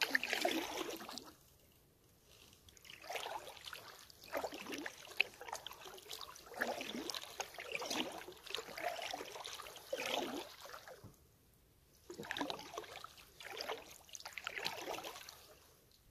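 Kayak paddle strokes in calm water: the blades dip and splash, with water trickling and dripping off them, in an uneven rhythm of roughly one stroke a second, broken by a couple of short pauses.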